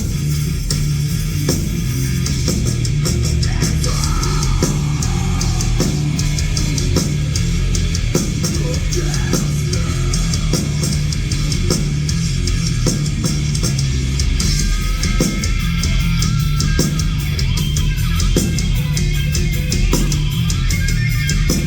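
Live heavy metal band playing loudly: distorted electric guitars and bass over a drum kit with a heavy low end, a lead guitar line sliding in pitch over the riff.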